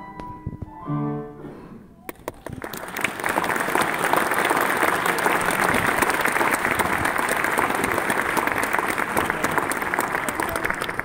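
The last piano notes of a choir song die away, and about two seconds in an audience bursts into applause, a dense steady clapping that holds loud to the end.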